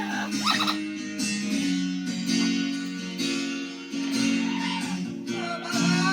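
Acoustic guitar music, strummed chords changing every second or so.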